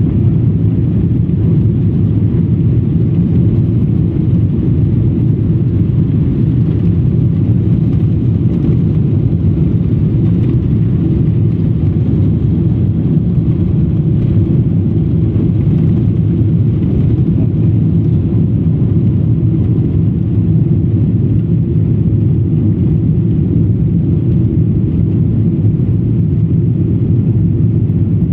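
Steady, loud low-pitched cabin noise of a Boeing 777-300ER in its climb after takeoff: the GE90 engines and the airflow over the fuselage, heard from a passenger seat.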